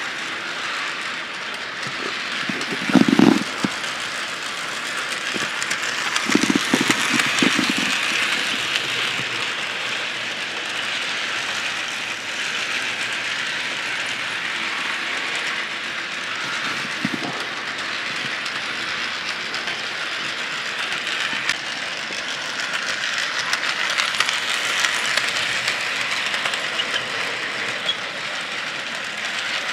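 HO scale model train running on its track: a steady electric-motor whir and wheel hiss with fine clicking of the wheels over the rail joints. A few low bumps stand out about three seconds in and again around six to seven seconds.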